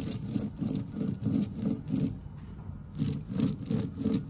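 Worn tapered roller bearing from a lathe spindle being turned back and forth by hand, its rollers giving a gritty grinding rumble on each stroke, about three strokes a second with a short break near the middle. The noise comes from rollers scored by running without oil, which the rebuilder thinks was contributing badly to the spindle's condition.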